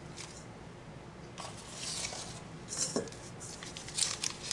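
Quiet rustling and handling of an instant vanilla pudding mix packet as it is opened and emptied into a stainless steel mixing bowl, with a light click about three seconds in.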